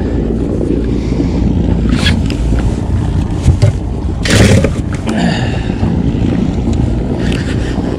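Steady low rumble of wind buffeting the microphone, with a few knocks from handling and one louder thump about four and a half seconds in.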